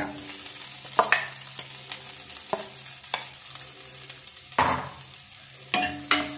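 Oil sizzling in a non-stick kadai under boiled potato cubes and fried onions and chillies, with a plastic spoon knocking and scraping against the pan as it stirs, in a few separate strokes.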